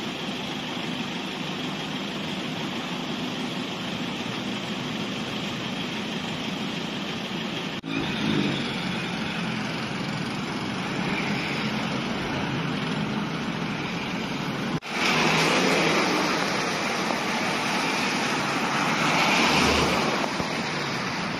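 Road traffic driving through standing floodwater: car and truck engines with tyres swishing and hissing through the water. The sound breaks off abruptly twice and comes back louder after the second break.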